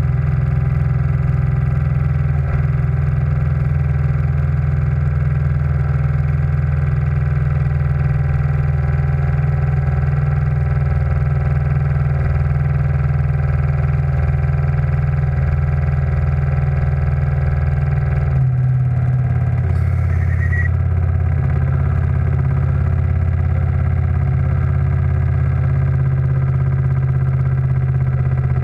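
Steam launch's engine and gas-fired boiler running steadily, a loud low hum; about two-thirds through the hum shifts in pitch and level, as with a change in engine speed or gas setting.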